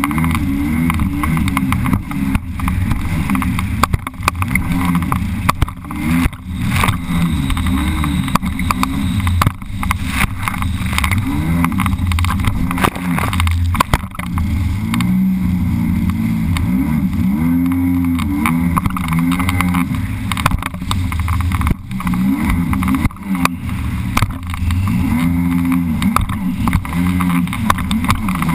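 Sea-Doo personal watercraft running at speed over choppy water. Its engine note keeps rising and falling, with water spray and the hull slapping on the waves in sudden knocks.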